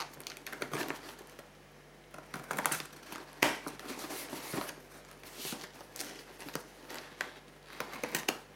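A cardboard shipping box being opened with scissors and by hand: irregular crinkling, scraping and tearing of cardboard and packing tape, with a few sharper clicks.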